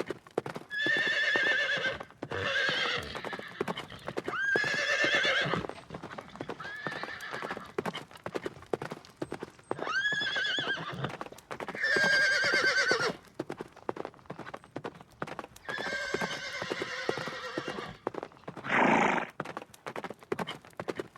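Horse hooves clip-clopping steadily with about seven whinnies over them, each one to two seconds long and quavering, several starting with a sharp upward sweep. A short, loud noisy sound comes near the end.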